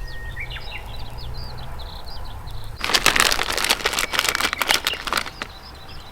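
Small birds chirping, with a loud burst of dense crackling about three seconds in that lasts some two and a half seconds and then stops.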